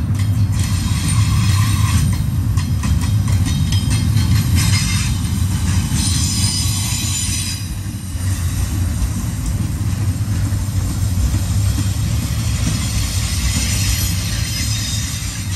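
Double-stack intermodal container train rolling past close by: a steady heavy rumble of freight cars on the rails with rattling clatter, and a faint high wheel squeal around the middle and again near the end.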